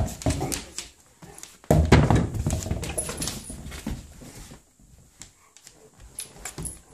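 A big dog playing with a red rubber Kong toy on a wooden floor: knocks and thumps of the toy and paws, with the dog's breathing and mouth noises close to the microphone. The sound is loudest about two seconds in and fades to scattered clicks.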